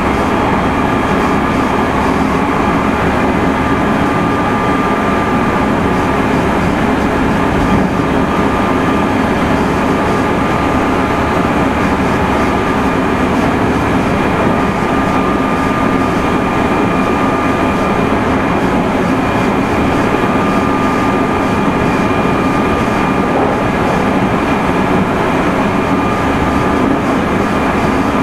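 Meitetsu 3100 series electric train running, heard from inside the carriage: a steady rumble of wheels on rail at an even speed. A thin, high, steady whine comes and goes over it.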